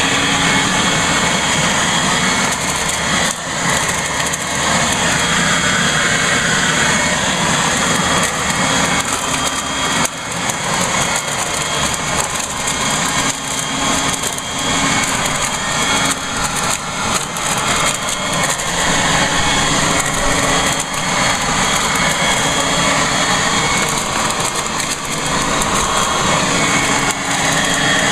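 Toro Super Blower/Vac, an electric leaf blower-vacuum, running steadily in vacuum mode as it sucks up leaves and shreds them into mulch through its impeller. There are short irregular rattles and dips in the sound.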